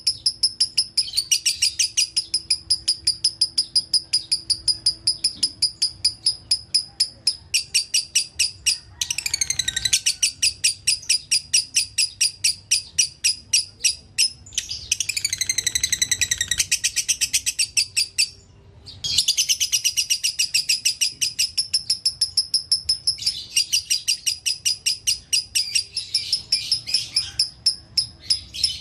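Lovebird singing a long, fast run of high repeated chirps, several a second, the chattering 'dobelan' song of a bird fanciers call 'konslet'. It breaks off briefly about eighteen seconds in, then carries on.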